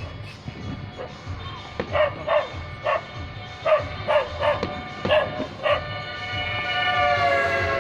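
A dog barking in short, sharp barks, about eight of them over five seconds, then a long, steady horn-like tone that starts about six seconds in and dips slightly in pitch.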